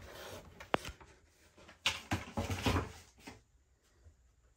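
Empty cardboard box being picked up and moved off a table: a sharp click just under a second in, then a knock and a brief rustling scrape of cardboard around two seconds in.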